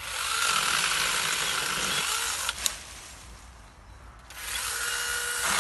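Campagnola T-Cat battery-powered one-hand pruning saw, its small chain running with a steady whine and cutting into a branch for about two and a half seconds, ending with a sharp click. About four seconds in, the saw runs again.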